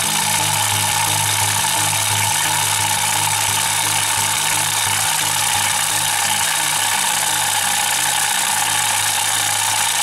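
Small four-stroke generator engine running steadily with its valve cover removed, so that oil can be seen reaching the rocker arms and valve gear.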